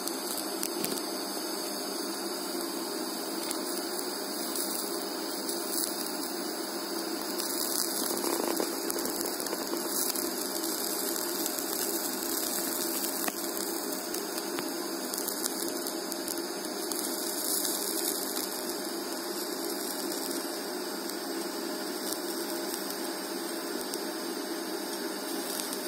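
DC TIG welding arc running steadily at about 70 amps: an even hiss and hum while filler wire is fed into the puddle.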